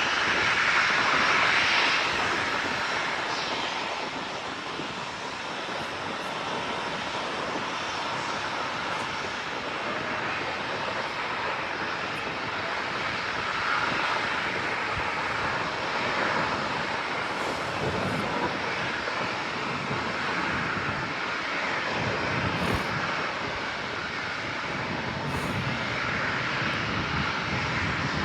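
Boeing 737-800's CFM56-7B jet engines at departure thrust, a continuous rushing jet noise that is loudest in the first couple of seconds, then eases slightly and holds steady.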